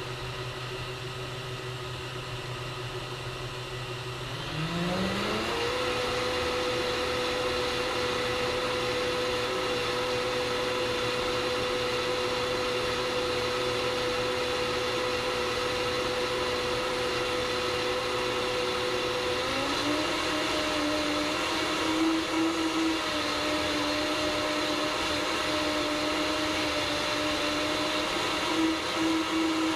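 Vitamix S55 personal blender motor running its Power Blend preset on ice, carrots and apple. The whine steps up in pitch as the programme speeds up, once about four and a half seconds in and again about twenty seconds in.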